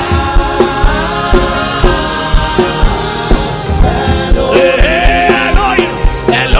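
Gospel worship music with a steady beat and singing, a sung phrase coming back in about two-thirds of the way through.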